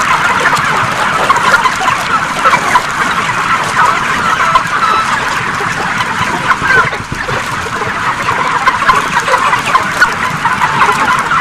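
A large flock of broiler chickens cheeping and clucking, many birds at once in a dense, unbroken chatter.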